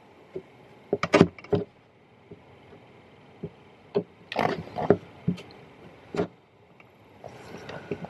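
Scattered clicks and knocks of hands working at a car's dashboard HVAC controls, some in quick clusters, over a low steady blower, with a short whirring noise near the end.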